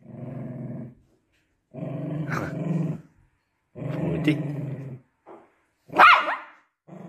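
A dog under a blanket growling: three long low growls, then a sudden loud bark about six seconds in as it lunges out.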